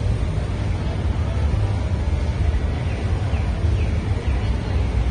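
Outdoor street ambience: a steady low rumble of traffic and wind on the microphone, with a few faint short high chirps about three seconds in.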